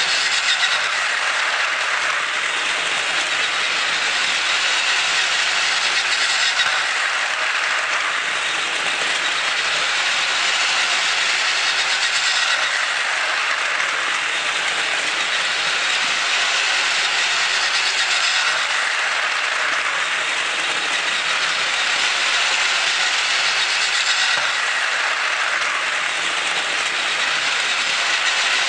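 Plarail E6 Komachi toy train, its motor swapped for a Tamiya Ultra-Dash motor, running steadily round a plastic track: a continuous high whir of the small motor and gears with the rattle of plastic wheels on the track, swelling brighter about every six seconds as it comes round the oval.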